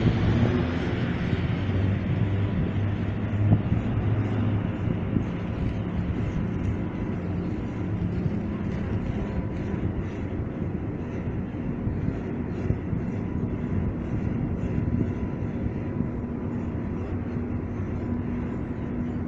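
Machinery of the old Niederfinow ship lift running as the trough moves: a steady mechanical rumble and hum. A deeper hum fades after about five seconds and a higher steady tone comes in during the second half.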